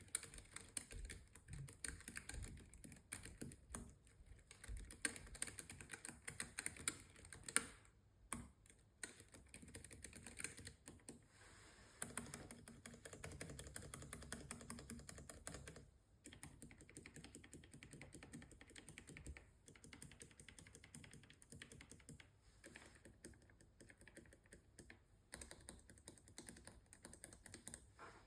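Typing on a Keychron K3 V2 low-profile mechanical keyboard with Keychron low-profile optical White switches, which are the clicky type: a fast, continuous run of key clicks, with brief pauses about eight and sixteen seconds in.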